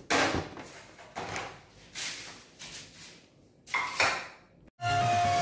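Kitchen clatter: about five sharp knocks and clinks of dishes and fittings, each fading quickly. Near the end it cuts to near silence and electronic music starts.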